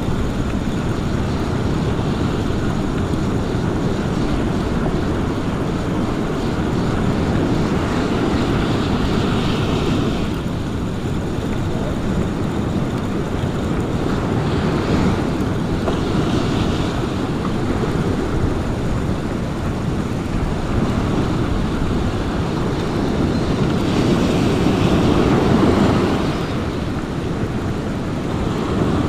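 Ocean surf breaking and washing up the beach, in slow surges that swell loudest near the end, with wind buffeting the microphone.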